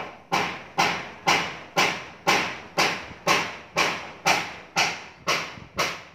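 Footsteps at a steady walking pace, about two a second, each a sharp thud with a short noisy tail.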